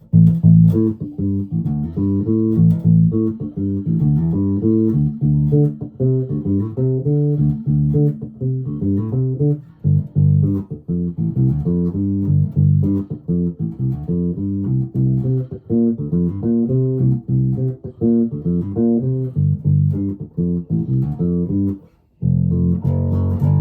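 1996 Alembic Epic four-string electric bass played on its neck pickup with its active preamp cut completely: a run of quick plucked notes in a dark tone with little treble. Near the end there is a short break, then one held note rings on.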